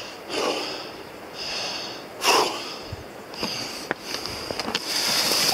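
Heavy, rhythmic breathing of a person working his way down a steep boulder slope, about one breath a second. A steady rush of river water grows louder near the end.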